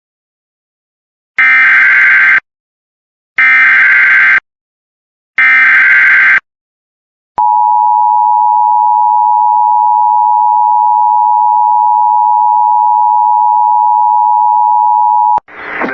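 Emergency Alert System alert tones: three one-second bursts of the SAME digital header, a harsh warbling data screech, about a second apart, then the steady two-tone attention signal (853 and 960 Hz together) held for about eight seconds and cut off abruptly near the end.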